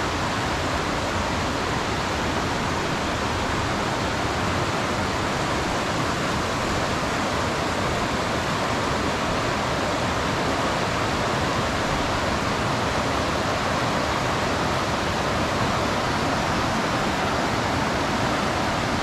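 Creek water rushing steadily: a loud, even wash of water noise with no breaks.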